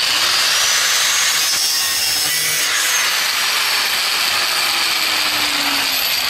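Power cutting tool running steadily with a grinding hiss and a high whine, used on the sheet-steel front fender of a Volkswagen Super Beetle around the rusted headlight ring. It starts suddenly, and a lower tone slowly falls in pitch in the middle.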